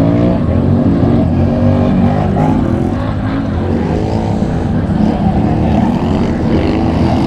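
Racing ATV engines of the 500–750 cc class revving hard. Several run at once, their pitch repeatedly rising and falling as the riders accelerate and back off.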